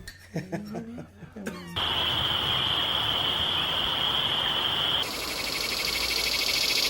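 A run of ambient background recordings joined by abrupt cuts: faint voices at first, then a steady noisy bed with one high steady whine, then a brighter hiss with a rapid pulsing texture.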